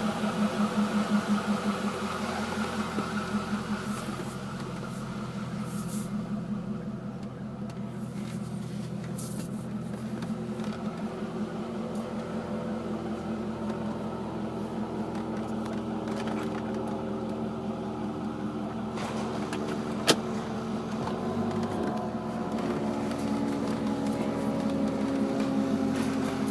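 C5 Corvette's V8 engine running steadily, with its pitch drifting in the second half, while a clicking noise comes from the car, which the owner hears only with the steering wheel turned to the right and suspects is in the suspension. One sharp click stands out about twenty seconds in.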